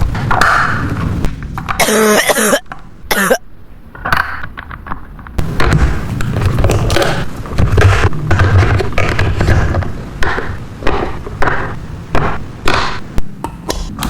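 A quick succession of short taps, clicks and knocks, irregular in spacing, with a couple of brief scraping bursts about two and three seconds in.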